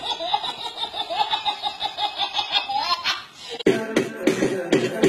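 A toddler's belly laugh: a long run of quick, high-pitched laughs that ends on a rising note about three seconds in. Near the end, guitar music starts abruptly.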